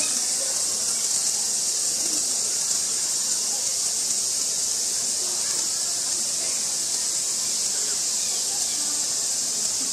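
Chorus of cicadas: a steady, high, even buzz with no breaks.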